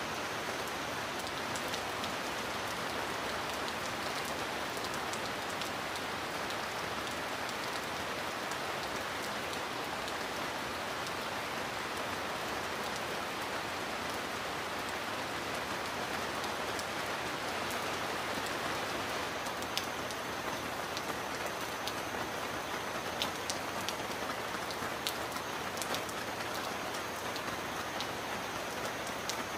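Heavy rain falling steadily on a metal roof, with sharper single drop hits standing out more in the second half.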